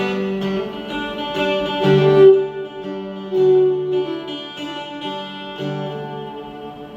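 Acoustic guitar and violin playing the closing bars of a folk song, chords and long held notes that fade away toward the end.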